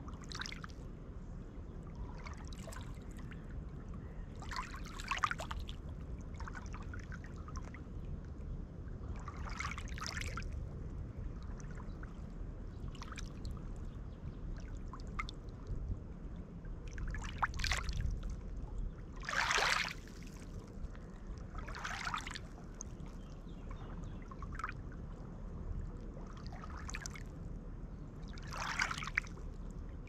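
Small lake waves lapping and splashing onto a pebble shore, a wash every two to three seconds, over a steady low rumble.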